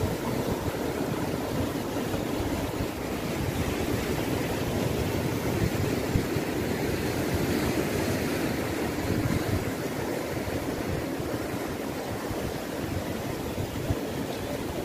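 Ocean surf breaking and washing up the shore as a steady rush, with wind gusting on the microphone as a low rumble.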